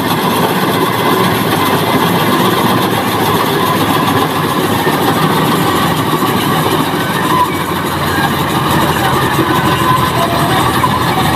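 Diesel engine of a John Deere 5075E tractor-based harvester running steadily as the machine drives through a muddy paddy field.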